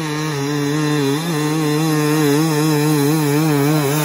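Dirt bike engine revving hard under load as it climbs a steep hill, its pitch wavering up and down a few times a second.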